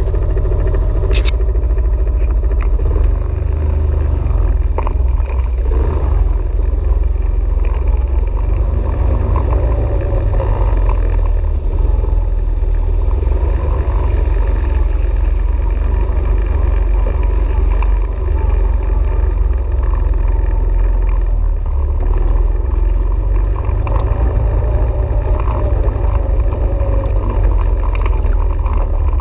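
ATV engine running while riding, its note wavering up and down, over a heavy low rumble.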